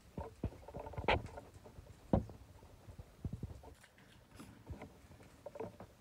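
Sparrows pecking birdseed on a concrete balcony floor: irregular light taps and knocks, the sharpest about one and two seconds in.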